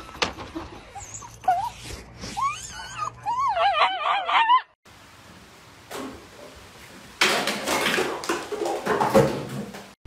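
A dog whining in high, wavering calls that slide up and down in pitch and grow more rapid, stopping abruptly about five seconds in. About two seconds later a dense rushing noise starts and runs for about three seconds.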